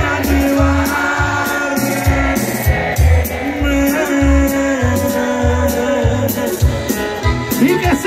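Norteño band playing live: button accordion over electric bass and drums, with a steady beat.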